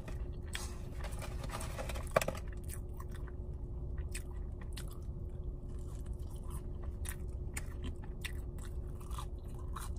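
Chewing fried fast food with the mouth close to the microphone: irregular wet mouth clicks and short crisp crunches, with one louder crunch about two seconds in.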